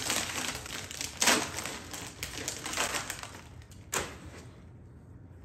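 Christmas wrapping paper being torn and crumpled off a gift by hand, with one louder rip about a second in. A single sharp knock comes just before four seconds, and then the rustling dies down.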